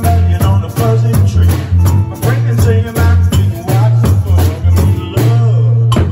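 Small live band playing a rock-and-roll number: electric guitars over a strong, pulsing bass line, with percussion. The band stops abruptly near the end.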